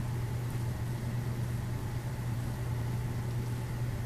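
Steady low mechanical hum with a faint hiss, unchanging throughout: background noise of the room.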